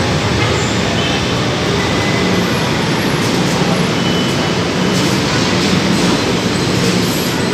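An elevated LRT Line 1 train running through the station: a loud, steady rail rumble, with a few faint, brief squeaks high up.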